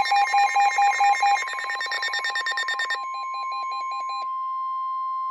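Several emergency alert devices sounding a warning at once: rapid, evenly pulsed alert beeps on several pitches over one steady alert tone. The beeping thins out about three seconds in and stops a little after four seconds, leaving only the steady tone.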